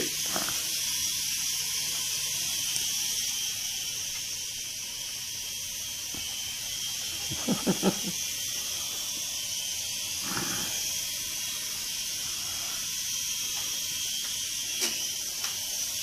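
A steady high hiss, with two brief faint voice-like sounds about halfway through.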